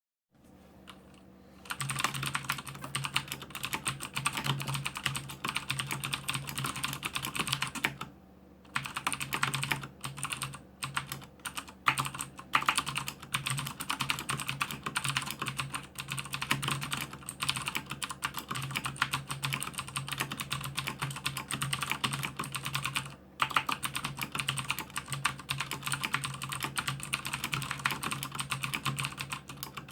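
Fast typing on a Rosewill Apollo RK-9100 mechanical keyboard with clicky Cherry MX Blue switches, a rapid run of sharp keystroke clicks at about 85 words per minute. It starts about two seconds in and stops briefly near eight seconds and again near twenty-three seconds.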